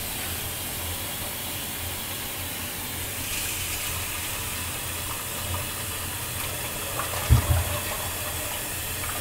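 Steady kitchen hiss over a constant low hum, with a dull knock about seven seconds in.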